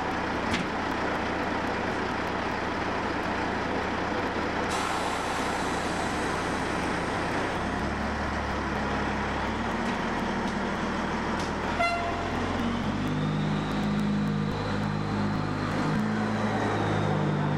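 MK45 diesel-electric narrow-gauge locomotive running at a standstill, its engine note stepping up a couple of times, with a short rattle about twelve seconds in.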